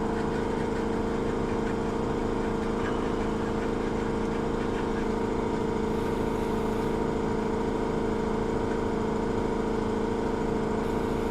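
A steady mechanical hum from a running motor, holding one constant pitch with no change in speed.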